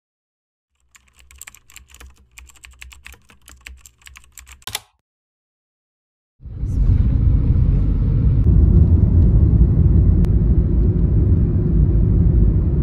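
Rapid keyboard typing clicks over a faint low hum for about four seconds. Then, after a short silence, a car's steady low road rumble starts up while driving and is the loudest sound.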